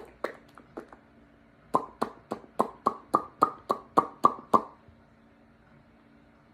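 Hands clapping: a few soft claps, then a quick, even run of about eleven claps, roughly four a second, that stops a couple of seconds before the end.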